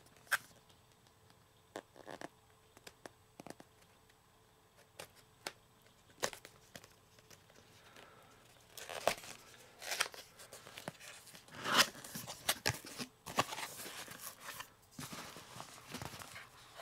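Cardboard box and packaging being opened by hand: scattered small clicks and taps at first, then louder tearing and rustling of packaging from about halfway through.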